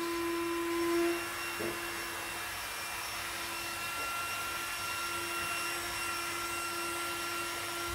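Exped Widget, a compact rechargeable battery air pump, running steadily as it inflates a large self-inflating sleeping mat through its valve: a continuous even hum that eases slightly about a second in.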